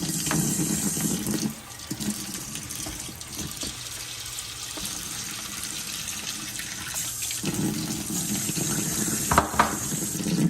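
Water running from a tap into a sink, heavier for about the first second and a half and again from about seven and a half seconds on, with two sharp knocks near the end.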